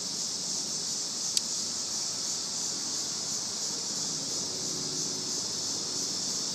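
Steady high-pitched chorus of insects buzzing continuously with a faint even pulse, and a single sharp tick about a second and a half in.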